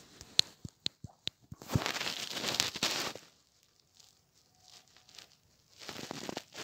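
Several sharp clicks in quick succession, then rustling, crinkling noise for about a second and a half. After a quiet gap, more rustling comes near the end.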